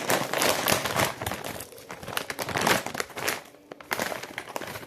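A Takis Crunchy Fajitas snack bag crinkling and rustling as it is handled and opened: a dense, busy crackle for the first three seconds or so, then sparser crinkles and clicks.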